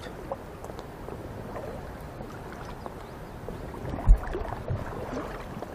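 Shallow stream water sloshing and splashing around the legs of a wading angler, with a dull low thump about four seconds in.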